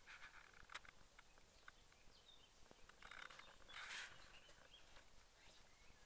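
Faint short chirps from small birds at a garden seed feeder, with scattered light clicks and two brief rustling bursts, one near the start and a louder one just before four seconds in.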